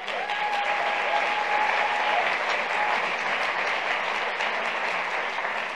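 Audience applauding steadily. A thin held tone sounds over the clapping for about two seconds near the start.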